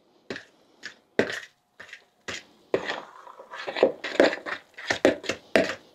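A fork mashing and stirring a thick deviled-egg filling of egg yolk, liver pâté and mayonnaise in a plastic bowl: about a dozen irregular squishing, scraping strokes.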